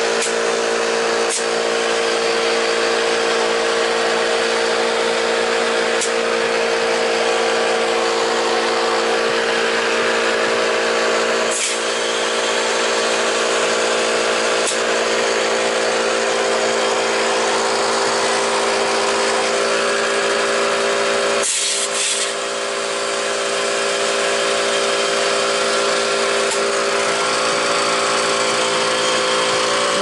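Air compressor running steadily: a constant motor hum under a hiss of air, dipping briefly about two-thirds of the way through.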